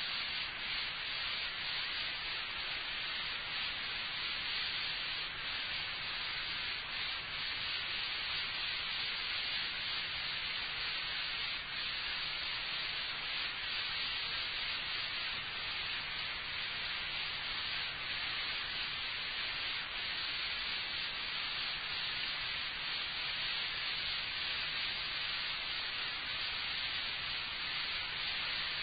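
Steady hiss of an old tape recording running with no speech, with a faint low hum underneath.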